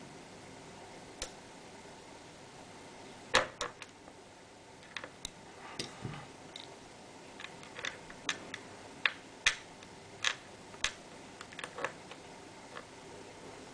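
Sharp, irregular clicks and taps of small plastic and metal laptop parts being handled, over a steady low hiss. There are about fifteen to twenty of them, starting about three seconds in, with the loudest first.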